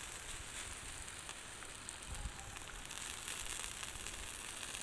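Bacon, sausage patties and frozen hash browns sizzling steadily on a Blackstone flat-top griddle at medium-low heat, with faint scattered pops and crackles.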